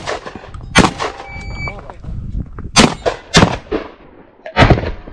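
About five gunshots from a long gun fired at steel targets, sharp and loud, irregularly spaced: one at the start, one under a second in, a close pair near three seconds, and one near the end.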